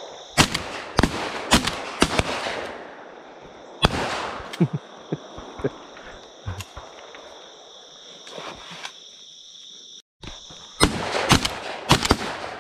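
12-gauge shotgun shots at passing doves: several sharp reports in the first two seconds, another about four seconds in, scattered quieter pops through the middle, and a quick cluster of shots near the end. Under them runs a steady high drone of crickets.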